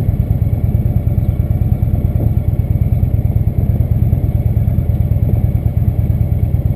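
Indian motorcycle's V-twin engine running steadily at low road speed, a dense low rumble with no revving.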